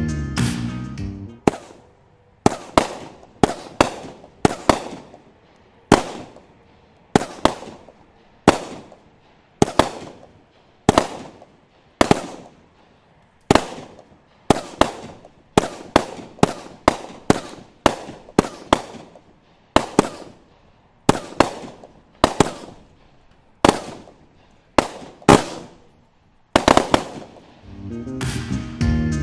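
Consumer firework cake firing shot after shot, a sharp bang roughly every second, each fading out briefly before the next. Music comes back in near the end.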